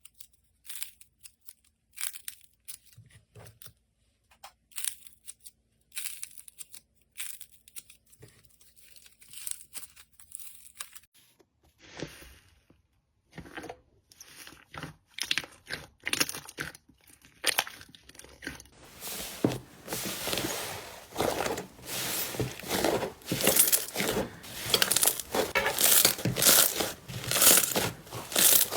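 Slime being squeezed and poked by hand, crackling and popping in short sparse bursts, then turning into a denser, louder run of crunching about two-thirds of the way in.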